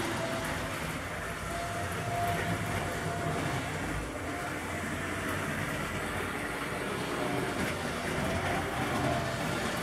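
Model train running along the track: a steady whir from the small electric locomotive and its wheels on the rails, with a faint high tone that comes and goes.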